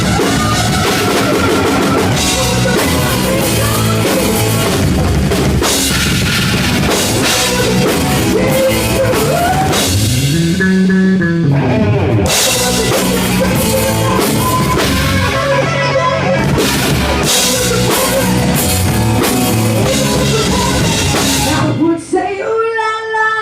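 Live rock band playing loudly: drum kit, electric guitar and bass with a singer. Near the end the band cuts off and a single voice carries on alone.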